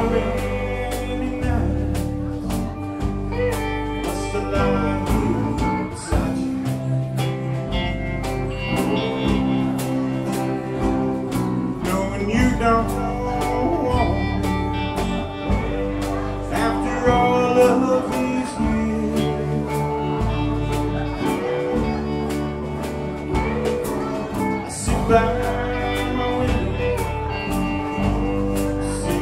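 Live alt-country band playing a steady-beat song: acoustic and electric guitars, bass guitar and drum kit, with a man singing lead.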